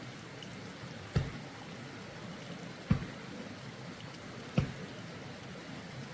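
Steady rushing noise with three sharp, heavy thumps, evenly spaced about a second and a half apart.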